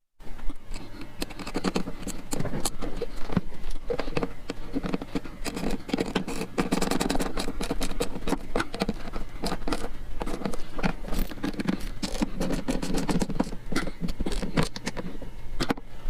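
Irregular clicking and scraping of hand tools and bolt hardware being worked into a fiberglass motorcycle bag, with denser stretches of scraping now and then.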